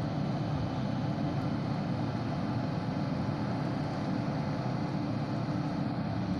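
Heavy machinery running steadily with a low, even rumble.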